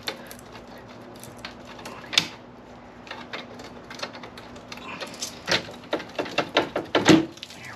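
Clicks, knocks and rattles of a Porsche 996's front A/C condenser being worked by hand out of its plastic mounting tab, with a sharp knock about two seconds in and a quick run of clicks near the end, ending on the loudest knock.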